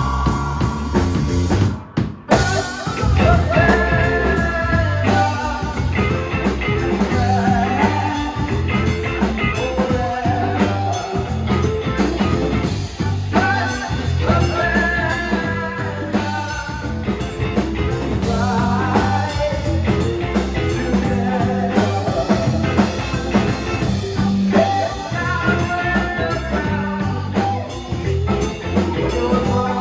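A live rock band playing: drum kit, bass, electric guitar and keyboards, with a wavering melody line over the top. The band cuts out for a moment about two seconds in, then comes straight back in.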